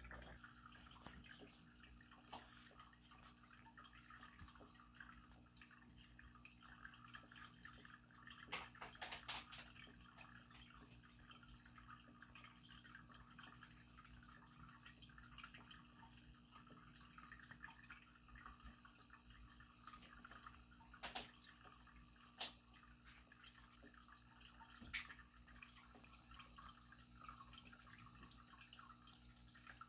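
Faint aquarium water sound: a soft trickling and dripping over a steady low hum, with a few short clicks scattered through.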